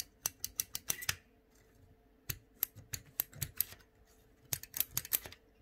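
Microswitches under the keys of a 3D-printed Enigma machine keyboard clicking as the keys are pressed one after another: sharp clicks in quick runs with short pauses. Each click shows the switch's little steel arm engaging, so that key works.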